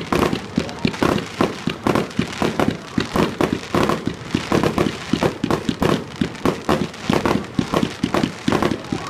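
Fireworks barrage: small shots fired in rapid succession, several bangs and pops a second with crackle, as red and green stars burst low in the sky.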